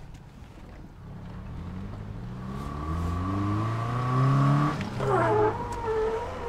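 Subaru engine under hard acceleration, heard from inside the cabin: its pitch climbs steadily for several seconds, then drops back about five seconds in. A short higher wavering sound follows just after the drop.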